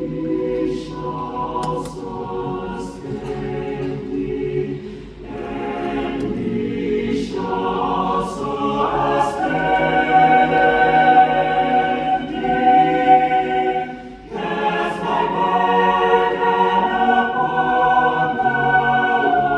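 Choir singing in held chords, swelling louder about halfway through, with a short drop in level about three-quarters of the way in, then full again.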